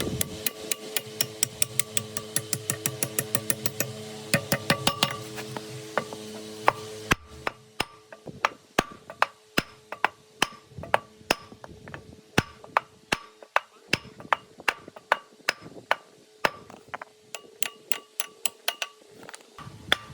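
Repeated hammer blows, about two to three a second, some with a metallic ring. A steady hum under the first blows stops abruptly about seven seconds in.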